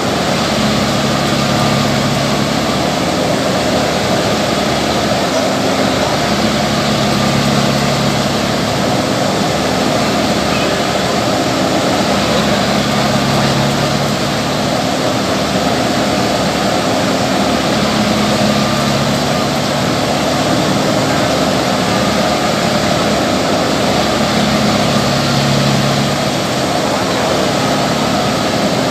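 Diesel engines of heavy farm machinery running continuously and loudly, with a low engine tone that swells and fades every few seconds.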